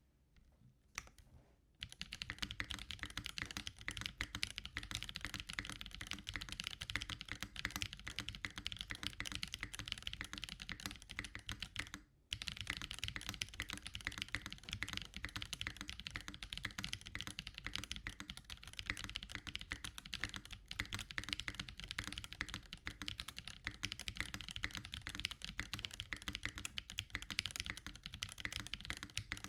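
Typing on a NovelKeys Classic TKL mechanical keyboard with Gateron mini i switches and GMK keycaps, built with no case foam on the stock polycarbonate plate: a fast, steady run of key clacks. It starts after a couple of seconds and pauses briefly about twelve seconds in.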